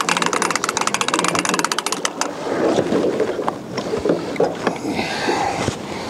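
Hand-wound longline reel clicking rapidly as the mainline is wound in, stopping about two seconds in; after that soft splashing and handling noise as a fish on its trace comes up to the boat.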